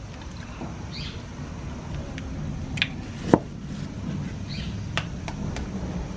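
An egg being cracked open by hand over a plastic bowl: a few sharp clicks of shell, the loudest about three seconds in, over a low steady background.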